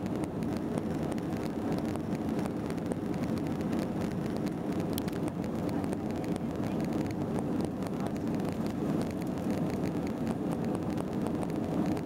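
Steady jet-engine and airflow roar inside the cabin of an Airbus A321-200 airliner during takeoff, heard from a window seat toward the rear.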